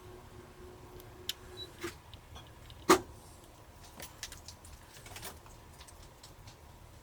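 Small clicks and taps of tools and parts being handled while a camera is taken apart, with one louder knock about three seconds in.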